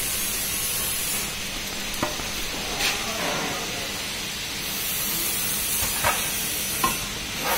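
Garlic peeling machine running with a steady hiss. A few light knocks and rattles come as garlic cloves and a plate are handled in its steel tray. The high part of the hiss fades for a few seconds about a second in.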